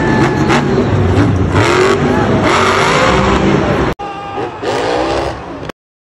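Monster truck engine revving, its pitch rising and falling, cut off abruptly about four seconds in; a quieter burst of revving follows and stops suddenly near the end.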